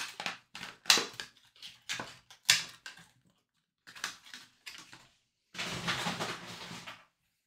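Scattered taps and clicks of handling at a desk, then about a second and a half of continuous crinkling about five and a half seconds in, as a trading-card box or pack wrapper is opened.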